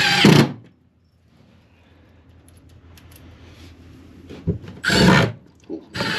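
Power drill driving screws: a run that stops just after the start, a short burst about five seconds in, and another run starting near the end, with faint scraping and handling in between.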